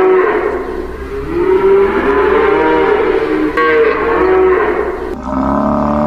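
Cattle mooing, several calls one after another. About five seconds in, a different, steadier call cuts in.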